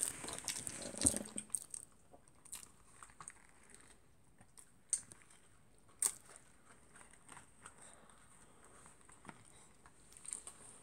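A person chewing and biting food close to the microphone: soft mouth sounds with scattered small crunches and clicks, a few sharper ones about a second in and around five to six seconds in.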